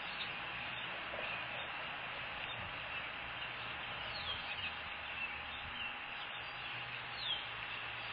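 Steady outdoor hiss on the nest camera's microphone, with a few faint, high, thin bird chirps that fall in pitch; the clearest comes near the end.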